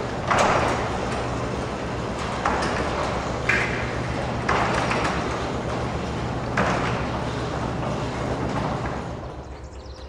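LiftMaster Professional commercial chain-drive garage door operator raising a large sectional door: a steady motor drone under the rattle of the chain and door running up its tracks, with louder clunks every second or two. It is pretty quiet for its size and winds down as the door reaches the top near the end.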